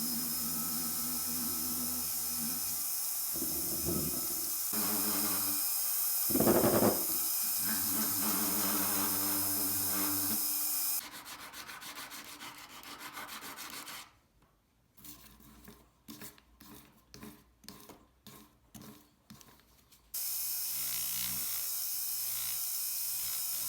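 Silver rings being hand-polished with abrasive compounds: a steady rubbing and sanding sound with a low hum, then, after a cut, a run of quick strokes followed by short separate rubbing strokes about once or twice a second, then steady rubbing hiss again.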